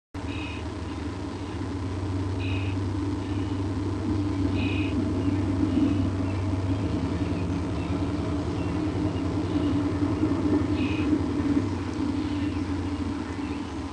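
Steady low rumble with a constant hum underneath. Short high bird chirps come three times about two seconds apart at the start and once more later on.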